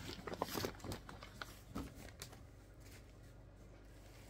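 Faint rustling and a few soft knocks as a person gets up and moves away, then quiet room tone with a low steady hum.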